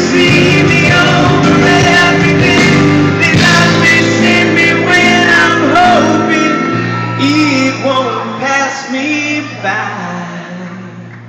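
Live rock band music from a concert with no lyrics sung. The full band plays for about the first six seconds, then thins to softer held notes and fades toward the end.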